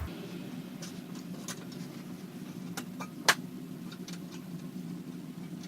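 Handling noise as a motherboard is set into a PC case: scattered light clicks and taps, with one sharper click a little over three seconds in, over a steady low hum.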